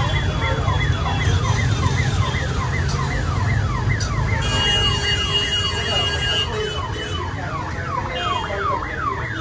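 Electronic siren sounding in rapid falling sweeps, about three a second, over a steady low traffic rumble; a steady higher tone joins for a couple of seconds midway.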